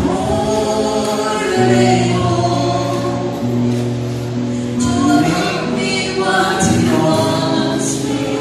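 A man and a woman singing a gospel duet into microphones, with acoustic guitar accompaniment, holding long sustained notes.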